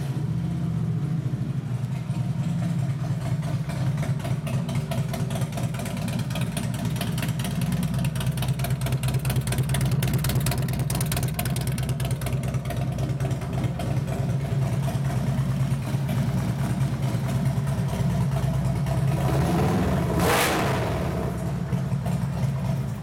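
Harley-Davidson Road Glide Special's fuel-injected Twin Cam 103 V-twin idling steadily through a Vance & Hines X-pipe and slip-on mufflers, pretty loud. There is a short sharper burst about twenty seconds in, and the engine cuts off at the very end.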